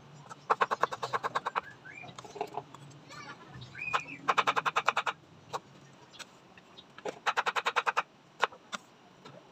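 An animal's rapid pulsing call comes three times, each burst about a second long at roughly ten pulses a second, with a couple of short chirps between them. Scattered single taps of a knife on a wooden cutting board fall in between.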